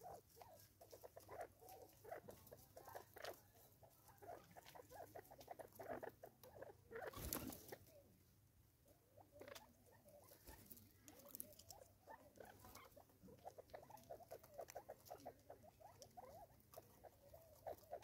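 Faint, quick taps and pecks as Natal spurfowl feed from a plastic-bottle seed feeder on a wooden stump, in scattered runs, with one louder brief knock about seven seconds in.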